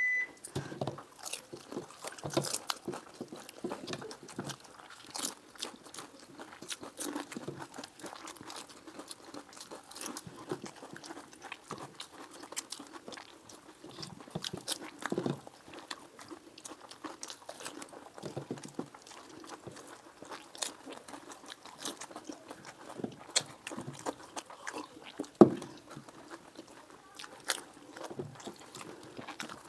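Close-up eating: crunching and chewing of dahi puri and momos, eaten fast, with many small scattered clicks and crackles. One sharper, louder knock comes about three-quarters of the way through.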